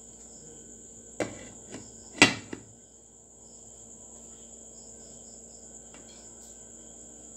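Glass pot lid set onto a frying pan: a clink about a second in, then a louder clatter a second later with a short ring. A steady high chirring of crickets runs underneath.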